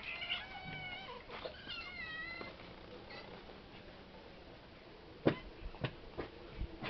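Cat meowing, a run of short high calls in the first couple of seconds, then a few sharp knocks near the end.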